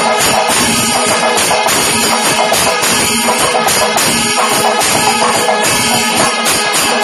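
Kerala panchavadyam temple ensemble playing in its middle-tempo stage (idakalam). Rapid, dense drumming from timila and maddalam drums runs under ringing, clashing ilathalam cymbals, loud and unbroken.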